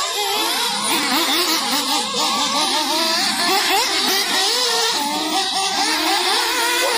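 Several nitro RC buggies racing, their small two-stroke glow engines revving up and dropping off over one another, pitches rising and falling continuously.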